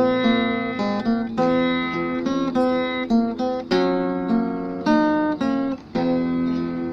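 Instrumental music played on a plucked string instrument, a melody of separate notes that each ring out and fade.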